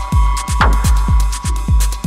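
Electronic background music with a steady, driving beat of deep kick drums whose bass drops in pitch on each hit, over fast ticking hi-hats and a held synth tone.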